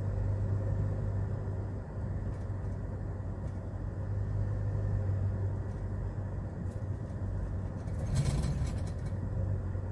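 Hyundai Porter II truck driving along, heard from inside the cab: a steady low engine drone over road and tyre noise. A brief louder rattle-like noise comes about eight seconds in.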